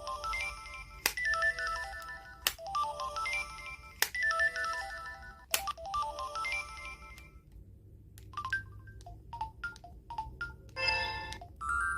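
Samsung Anycall SCH-S530 mobile phone playing a ringtone: a short melody of quick descending notes, repeating about every second and a half. It stops about seven seconds in. After a few scattered clicks and short tones, a different melody begins near the end.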